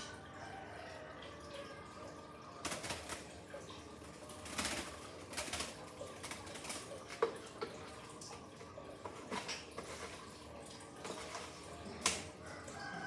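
A pet bird flapping its wings in several short bursts, over faint dripping water.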